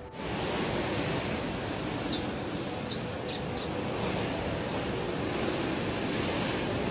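Steady rushing noise of storm wind and surf, with a few faint short high chirps about two to three seconds in; it cuts off suddenly at the end.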